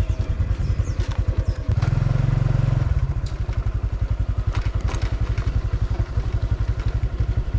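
Small motorcycle engine running with a rapid, even pulse, briefly louder and smoother about two seconds in, with a few light clicks and rattles over it.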